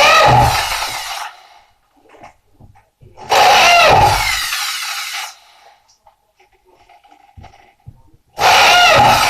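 A power tool, most likely a drill, run in three short bursts about four seconds apart. Each cuts in at full loudness and winds down over about two seconds.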